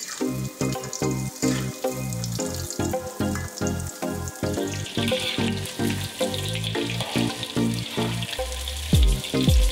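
Batter-coated chicken wings deep-frying in a wok of hot oil, a steady sizzle. Background music with a steady beat plays over it, with heavy kick-drum thumps near the end.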